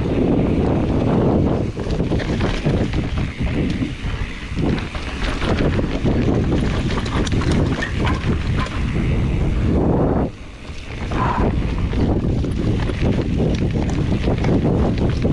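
Wind buffeting the camera microphone during a fast mountain-bike descent, over the rumble of tyres on a dirt trail and constant clicks and rattles from the bike. The noise drops briefly about ten seconds in, then returns.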